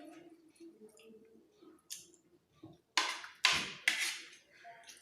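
Small spoon scraping and clinking against a plate while scooping up rice, with three louder scrapes in quick succession about three seconds in.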